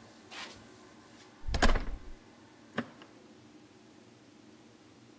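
A heavy thump about a second and a half in, then a sharp click about a second later, after a faint brushing sound near the start.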